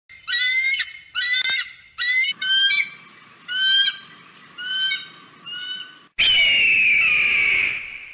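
Eagle calls: a string of about seven short, high, shrill calls, each sliding slightly down in pitch. About six seconds in comes one long, loud scream that falls slowly in pitch.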